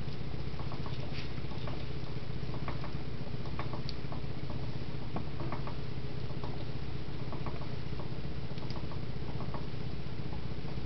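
A stainless steel pan on a smooth-top stove, hot and moving about on its own, giving off a steady low hum with many small irregular clicks and ticks as it rattles and jiggles on the cooktop.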